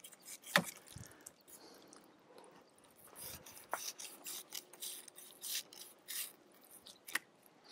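A fillet knife cutting through a cod and scraping along its backbone: scattered short rasps and clicks, the sharpest about half a second in.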